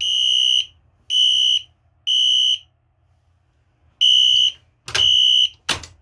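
Wheelock Exceder fire alarm horn sounding the code 3 temporal pattern of three high half-second beeps, a pause, then the pattern starting again, its horn muffled with duct tape and set to low volume. A sharp click comes near the end as the horn stops after the second beep of the next round.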